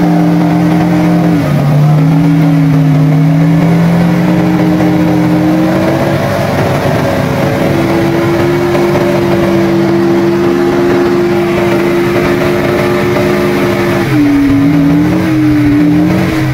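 GAZ-66 truck's V8 petrol engine running hard under load as the truck crawls through deep snow. The revs hold steady, step up about six seconds in, and rise and fall unevenly near the end.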